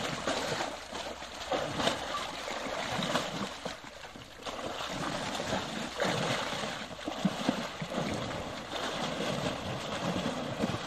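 Water splashing and sloshing as an elephant wades and churns through a muddy river, rising and falling in uneven surges.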